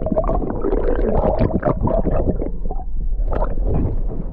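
Muffled rumbling and gurgling of water moving around a camera held under the sea surface, with many irregular knocks and crackles.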